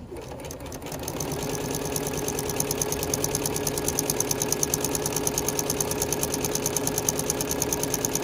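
Electric sewing machine stitching a buttonhole with its one-step buttonhole foot: the motor starts and builds over the first second, then runs fast and steady with an even, rapid rattle of needle strokes.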